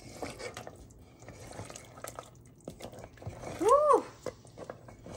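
Wooden spatula stirring a thick beef trotter stew in a pressure cooker pot: small clicks and wet sloshing of the liquid. About three and a half seconds in, a short pitched sound rises and falls, louder than the stirring.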